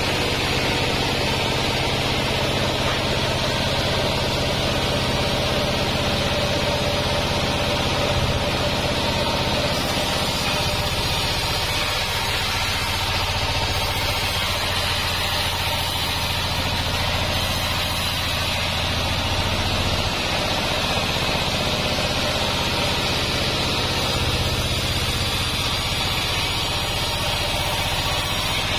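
Band sawmill running steadily, a continuous engine-and-blade hum with a constant low note.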